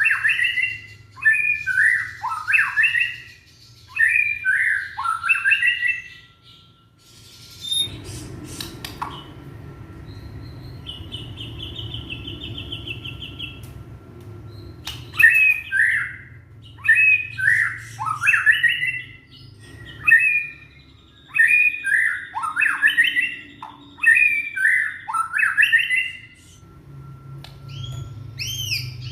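Young white-rumped shama calling in runs of short, harsh, down-sweeping phrases, each under a second. The runs break off for several seconds in the middle, where a brief fast rattle is heard, and a few clear whistled notes come near the end.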